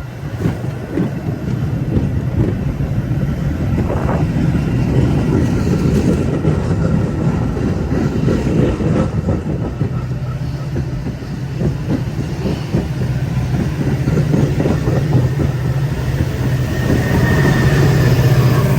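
Metra diesel commuter train departing, with a steady low engine drone and the wheels clicking over the rails, getting louder near the end.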